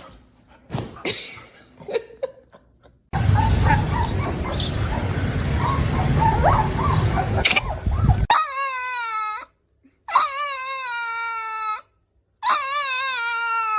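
A dog gives three long, wavering cries that drop in pitch at the end of each. Before them come several seconds of loud rushing noise.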